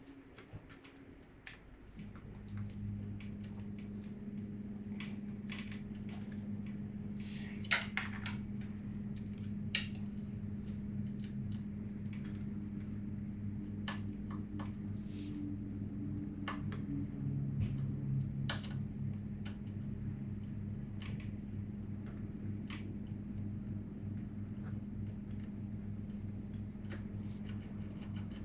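Scattered light metallic clicks and clinks of hand tools and parts being handled, the sharpest about eight seconds in, over a steady low hum.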